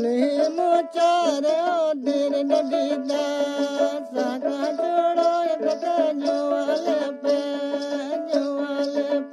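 A Santali dong song: singing voices carrying a wavering melody over a steady instrumental accompaniment.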